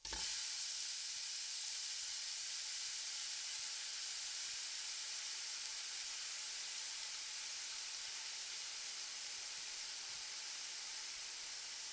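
Toy stove's electronic frying sound effect: a steady sizzling hiss that eases off slightly toward the end.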